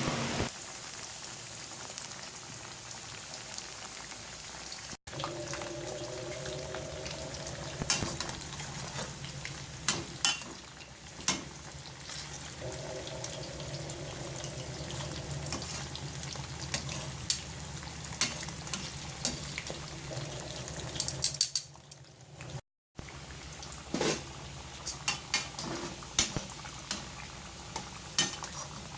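Sweet potato chunks frying in oil over a low flame: a steady sizzle and bubbling, with occasional sharp clinks of a utensil against the pan.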